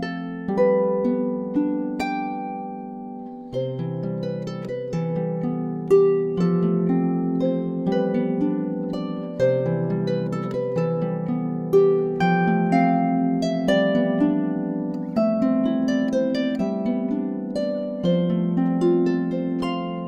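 Dusty Strings FH36S lever harp playing a piece of solo music: a plucked melody ringing over low bass notes, which change a few times.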